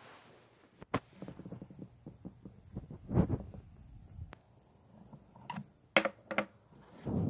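Plastic slime tub being handled on a table: a run of small clicks, taps and crackles, with a few sharper clicks near the end.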